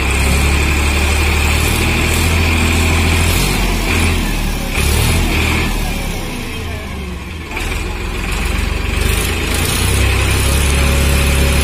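Tractor engine running the hydraulic pole-erection machine. Its low hum wavers and drops for a few seconds in the middle, then settles back to a steady run, with a steady high whine over it.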